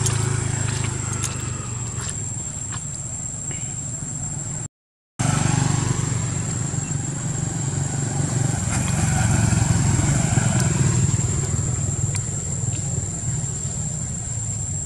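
Steady low rumble of motorbike traffic on the road, with a constant high-pitched insect drone over it. The sound cuts out for half a second about five seconds in.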